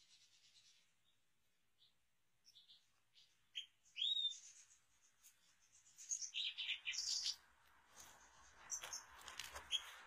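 European goldfinch chirping and twittering in short, high calls that come in scattered bursts: one about four seconds in, a cluster between six and seven seconds, and more near the end. Light clicks come in between the calls.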